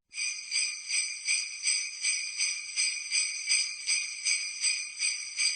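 Jingle bells shaken in a steady rhythm, about three shakes a second, with a bright metallic jingling.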